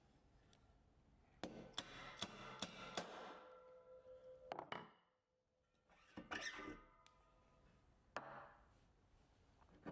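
Faint clinks and taps of metal hub parts and service tools being handled while a hub bearing is fitted. A quick run of about five sharp taps comes between one and three seconds in, with a brief metallic ringing. A few single knocks follow later.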